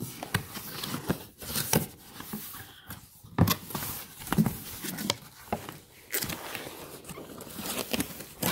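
Cardboard box being opened by hand: flaps and sleeve rubbing and scraping, with irregular taps and rustles.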